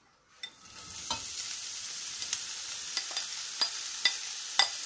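Finely chopped mushrooms dropped into a preheated stainless-steel sauté pan with a little oil, beginning to sizzle about half a second in and frying steadily, with scattered sharp crackles.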